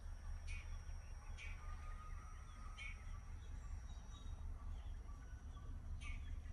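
Low, steady rumble of a truck's engine heard inside the cab, with a few short bird chirps at irregular intervals.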